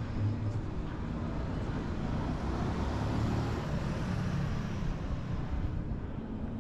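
City street traffic noise with a low engine hum; a vehicle passes, swelling about halfway through and easing off near the end.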